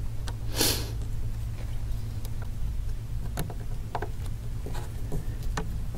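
Faint, scattered small clicks and ticks of a precision screwdriver working a tiny screw into the metal bracket over an iPhone 5's ear speaker, over a steady low hum. A short hiss comes about half a second in.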